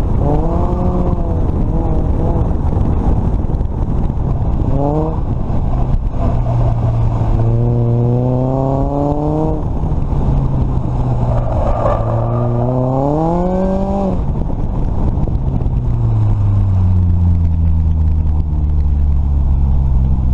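Supercharged 2006 Chevrolet Cobalt LS 2.2-litre four-cylinder on an autocross run, its revs climbing and dropping several times between corners, the last climb the highest, then settling to a lower, steady drone near the end as the car slows. A constant rush of wind and road noise runs underneath.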